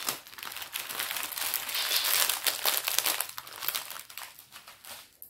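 Plastic packaging of a diamond painting kit crinkling as it is handled: dense rustling with many small clicks, dying away near the end.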